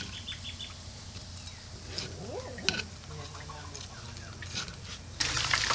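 Metal tongs clicking against a wooden plate as cooked bacon is set down, with a few faint bird chirps. About five seconds in, oil in a frying pan starts sizzling loudly around a frying egg.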